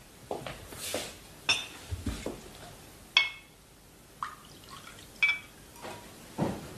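Scattered soft knocks, one with a dull low thud, and three short ringing clinks of glass or china, about two seconds apart.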